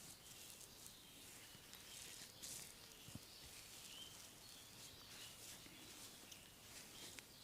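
Near silence, with faint scattered rustles and light clicks.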